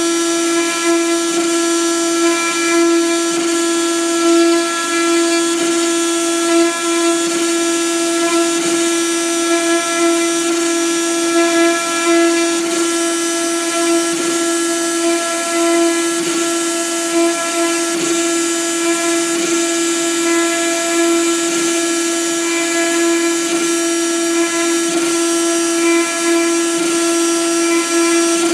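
CNC router spindle running with a steady, high-pitched whine, its bit engraving a pattern into a sheet.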